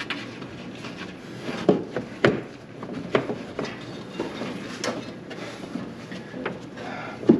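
New brake master cylinder being handled and fitted into place by hand: irregular knocks and clicks with some rubbing, the sharpest about two seconds in and again near the end.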